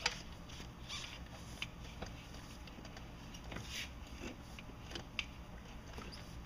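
Shift cable being worked through a rubber shift bellows and into the bell housing of a MerCruiser Bravo transom assembly: scattered light clicks and knocks with a few brief scraping, rubbing sounds.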